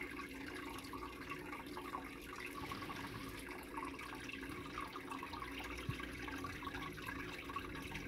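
Water from a double-cascade aquarium filter trickling and splashing steadily into the tank, over a low steady hum.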